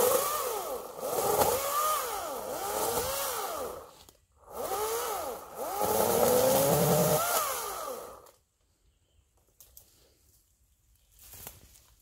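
Chainsaw cutting through brush and small trees in two bouts of about four seconds each. The engine pitch rises and falls again and again as the chain bites and frees. It stops just after eight seconds in.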